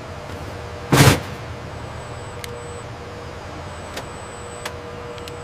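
Steady mechanical background hum with a short, loud burst of noise about a second in, followed by a few faint clicks.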